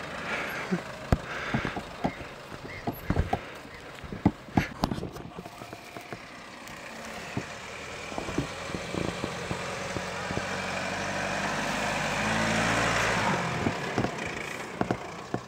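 Subaru Forester's engine running as the car crosses a dirt off-road track, with scattered sharp knocks and clicks in the first few seconds. The engine grows steadily louder as the car comes up the track and climbs a mound close by, then eases off near the end.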